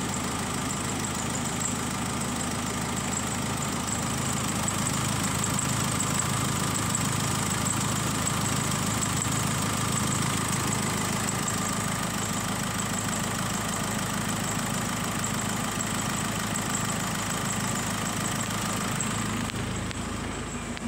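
Nissan D40 Navara's 2.5-litre four-cylinder turbo diesel idling steadily, heard from over the open engine bay. It turns slightly duller near the end.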